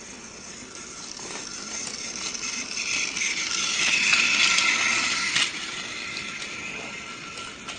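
A small mechanism whirring and rattling. It swells to its loudest about four to five seconds in, then drops suddenly about five and a half seconds in.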